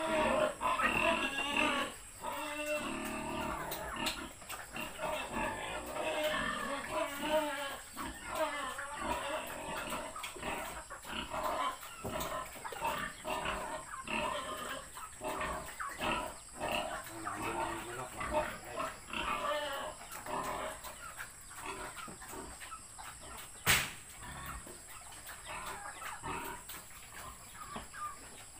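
Domestic pig grunting and eating at its trough, a busy run of short irregular chomping noises that thins out toward the end. A single sharp knock stands out about three-quarters through.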